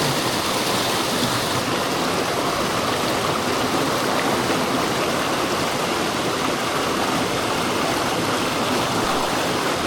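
Fast-running jungle stream rushing over rocks, a steady loud noise of flowing water, swollen after rain.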